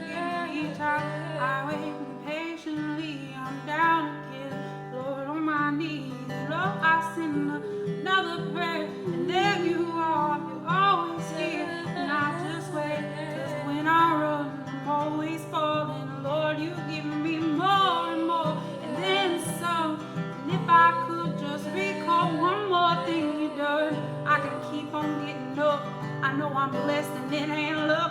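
Music: acoustic guitar playing with a wavering melody line over it.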